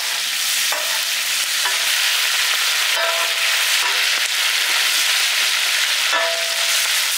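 Hot oil sizzling steadily in a large steel pan as ginger, garlic, green chillies and dried red chillies are tempered in it, with a steel ladle stirring and scraping against the pan about five times.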